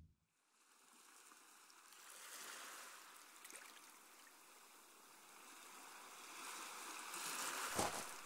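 Faint sea surf washing onto a sandy beach: a soft, even hiss that swells and eases as the waves come in. A low thump near the end.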